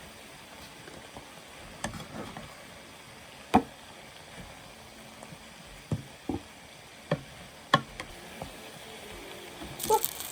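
Cooking utensils knocking against cookware, about six separate sharp clacks spaced a second or more apart, over a steady faint hiss, with a louder rattle near the end.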